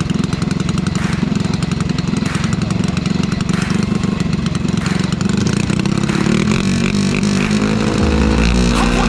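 Engine running steadily with a fast, even firing pulse, getting a little louder in the last few seconds as music fades in.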